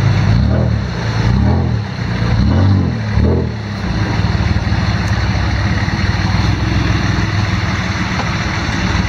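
Off-road racing 4x4's engine revving in repeated surges, about one a second, for the first three seconds or so, then running at a steady, lower speed.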